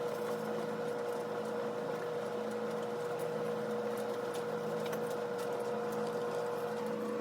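A steady machine hum with one strong tone, under a fainter low throb that swells and fades about once a second.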